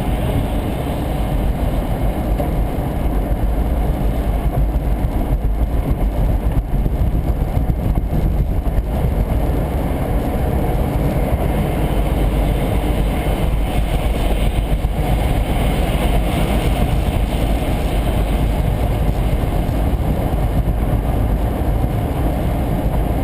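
Steady road noise inside a car cabin at highway speed: tyres on wet pavement and the engine running, with no sudden events.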